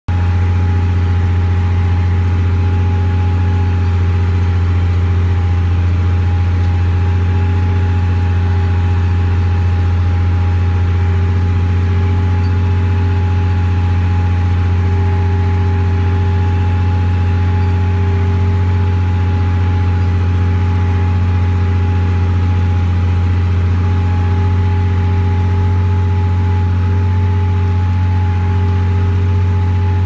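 Tractor engine running steadily under load while pulling a disc plough: a constant deep drone with a fainter steady higher tone over it, unchanging throughout.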